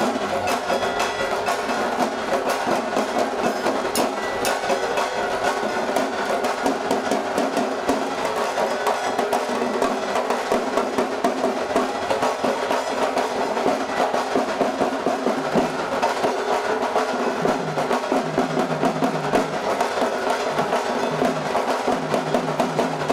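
Devotional music with quick, steady percussion driving a continuous beat.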